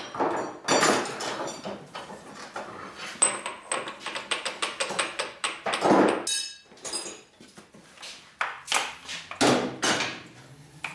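Workshop clatter of metal tools and parts being handled: a string of irregular knocks and taps, with a short ringing metallic ping about three seconds in and a louder knock followed by ringing about six seconds in.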